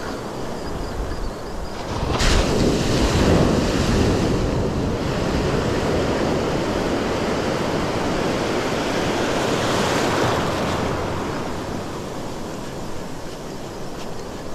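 Small waves breaking and washing through shallow surf. The wash surges about two seconds in and eases off after about ten seconds.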